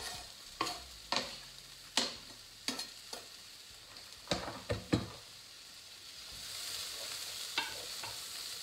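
Diced mushrooms knocked and scraped off a plastic chopping board into a hot pot of frying vegetables: a string of sharp taps and clatters over the first five seconds. From about six and a half seconds the mushrooms sizzle steadily as they are stirred in.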